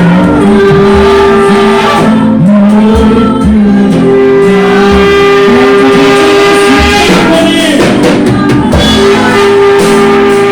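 Loud live worship music: a band with drums and long held keyboard notes, with a congregation singing along.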